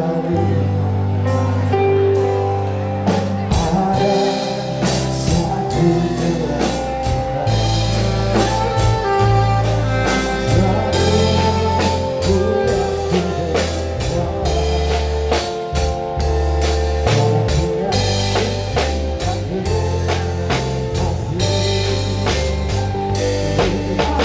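Live band music: a drum kit keeping a steady beat with cymbal hits, under electric guitar and a saxophone melody, with changing low notes beneath.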